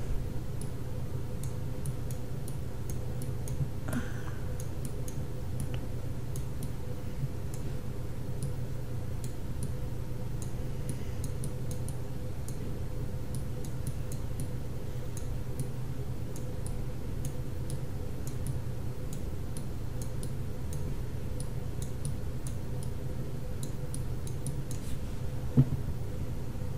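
Countdown timer ticking faintly over a steady low electrical hum, with one sharper click near the end.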